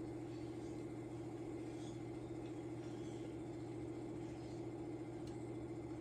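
Electric potter's wheel motor running at speed, a steady low hum with a fine even pulse.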